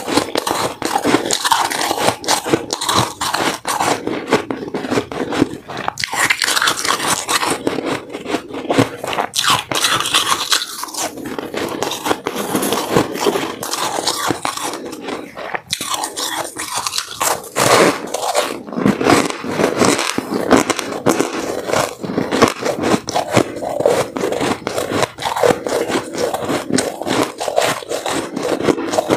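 Close-up crunching of white, frosty ice chunks being bitten and chewed, one crisp crunch after another with only brief lulls.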